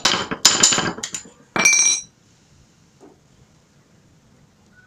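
A small hammer striking steel fence wire against a wooden block: a few sharp metallic clinks in the first two seconds, the last and longest one ringing.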